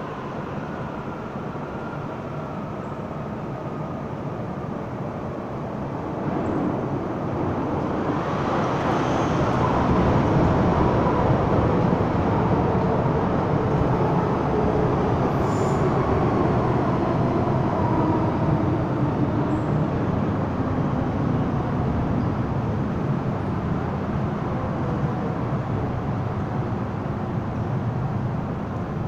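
MTR M-Train electric multiple unit arriving at a station platform: its rumble builds about six seconds in, then wheel-on-rail noise with a motor whine falling in pitch as the train brakes to a near stop.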